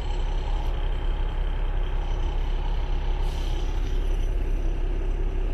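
Camper truck's diesel engine idling steadily, heard from inside the cab, with a brief hiss a little over three seconds in.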